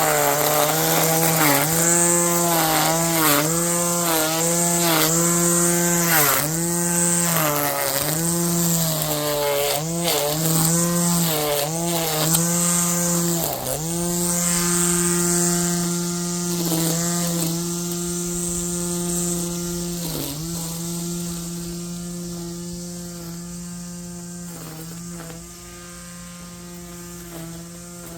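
Greenworks Pro cordless electric lawnmower running through tall grass: a steady motor-and-blade whine whose pitch sags and recovers again and again as the blade is loaded by the thick grass. Over the last third it runs steadier and grows quieter.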